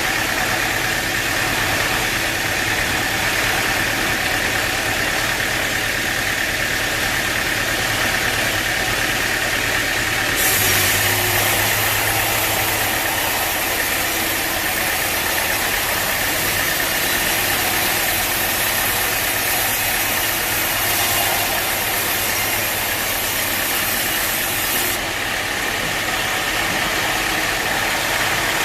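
Sawmill machinery running steadily, a continuous motor-driven drone with a steady high tone. About ten seconds in, a higher hissing layer joins and holds until a few seconds before the end.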